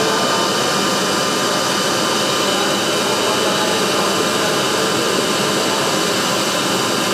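Steady machinery noise from an industrial variable-frequency drive installation running a motor: an even, loud whir with a few faint steady high-pitched whine tones over it.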